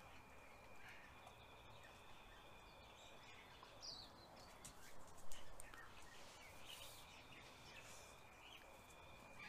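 Quiet backyard ambience with a faint steady high tone and a few faint bird chirps, broken by a brief knock about five seconds in.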